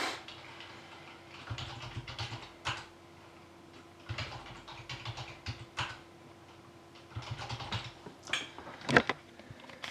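Typing on a computer keyboard in three short runs of quick keystrokes, with a few louder clicks near the end.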